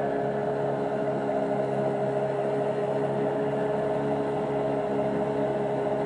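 Boat engine running at a steady, even drone with a low hum and no change in speed.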